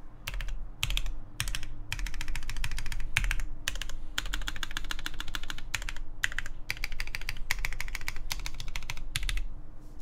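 Typing on a Keycult No. 2 TKL mechanical keyboard with lubed Kailh Cream switches, an aluminium plate and Hammerworks CRP keycaps: quick runs of keystrokes separated by short pauses, stopping near the end.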